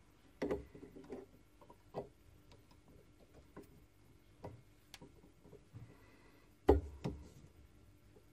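Scattered light metallic clicks and knocks as a tap wrench is handled and lined up against a brass workpiece in a stopped lathe's chuck, with the tailstock drill chuck brought up behind it. One louder knock comes near the end, followed by another shortly after.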